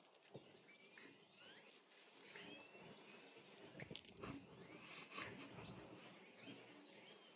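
Faint outdoor quiet with small birds chirping now and then and a few soft clicks or taps.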